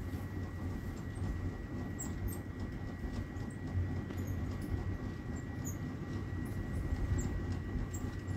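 A metal slotted spoon stirring chopped vegetables in a steel pan, with light scrapes and ticks over a steady low rumble.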